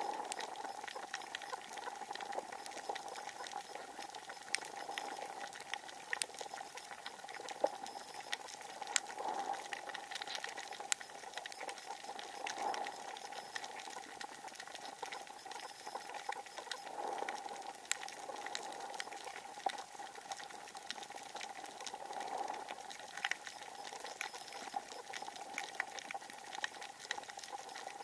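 Underwater reef crackle: dense, irregular clicking from snapping shrimp, over a steady hum that swells briefly every few seconds.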